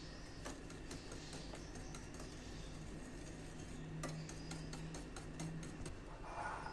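Wire whisk beating eggs and sugar by hand in a glass bowl: faint, quick, irregular clicks of the wires striking the glass.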